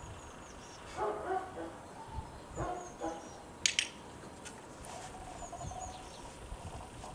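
Puppy whining and yipping a few times in short bursts, with one sharp click from a training clicker about three and a half seconds in; faint bird chirps in the background.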